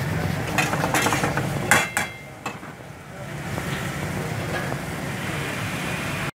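A few sharp clatters of a metal ladle against a karahi over a steady kitchen background noise, the loudest in the first two seconds; the sound cuts off suddenly near the end.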